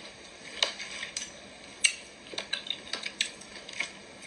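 A fork clinking against a dish as someone eats: a handful of short, sharp, irregularly spaced clinks.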